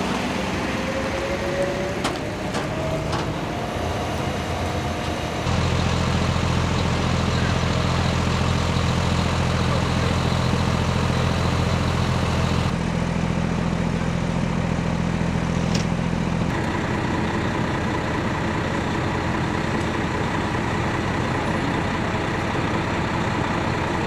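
Fire trucks' engines running steadily at a low hum, the pitch and level shifting abruptly a few times.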